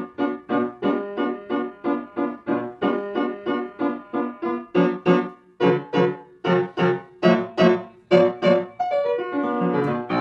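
Background piano music: a bouncy run of short, evenly spaced notes, about three or four a second, ending in a quick downward run of notes.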